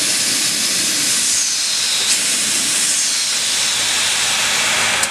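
Pere Marquette 1225, a 2-8-4 Berkshire steam locomotive, standing and venting steam with a loud, steady hiss.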